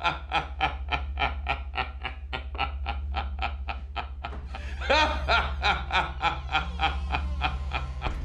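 An old man laughing a long, rhythmic cackle of about four pulses a second, breaking out louder again about five seconds in, over a steady low hum.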